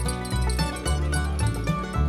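Background music: a country-style tune with plucked string instruments over a steady, recurring bass note.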